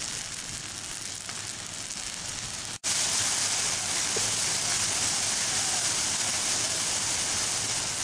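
Pine trees and brush burning in a forest fire: a dense, steady hiss of the flames. It cuts out for an instant about three seconds in and comes back louder.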